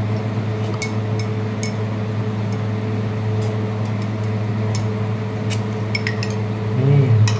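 Metal spoons clinking against drinking glasses in scattered light taps as mint-and-lime mojito is stirred, over a steady low electrical hum. A short voice sound comes near the end.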